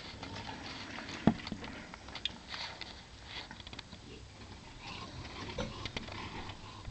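Bulldogs' paws and claws pattering and clicking on wooden deck boards as they move about, with one sharp knock about a second in.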